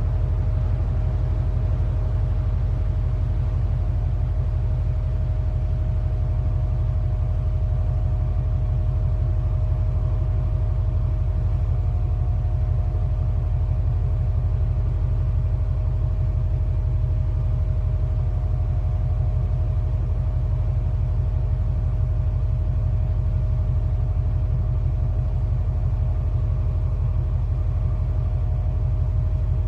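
Cargo ship's engine humming: a steady deep rumble with a faint constant tone above it, unchanging throughout.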